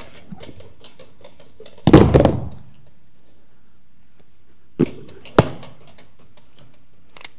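Barbell and weight plates knocking: a loud clattering clank about two seconds in, then two sharp metallic clicks a little before halfway through the second half, and a faint pair near the end.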